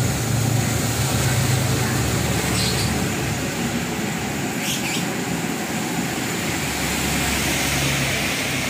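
A stove burner running steadily under a large pot of sugar syrup that is heating but not yet at the boil.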